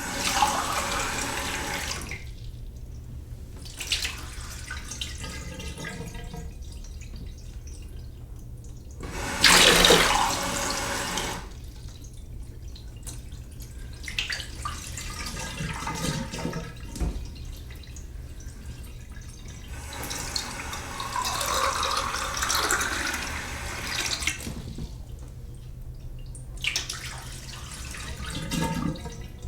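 Water running from a sink tap into a glass, the flow turned on and off several times in spells of a few seconds, the strongest burst about ten seconds in.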